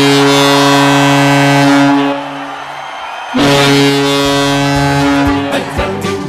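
Ice hockey arena goal horn sounding two long, steady blasts, the second starting about three seconds in. Music with drum beats starts near the end.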